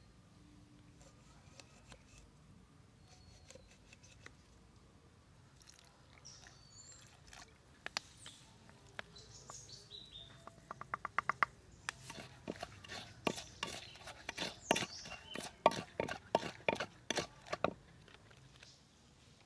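Wooden pestle and spoon knocking in a clay mortar while a seasoning mix is pounded and stirred: a quick run of small clicks about halfway through, then a dense, irregular series of sharp knocks that stop shortly before the end. Faint bird chirps earlier.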